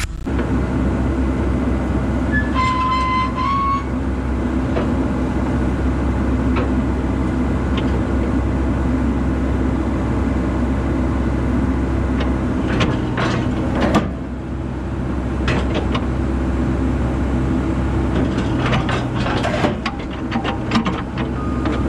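Komatsu PC88 mini excavator's diesel engine running steadily, with a brief high steady tone about three seconds in. A few metal clanks come around 13–14 seconds and again around 19–21 seconds as the trailer's wooden ramps are lowered with the bucket.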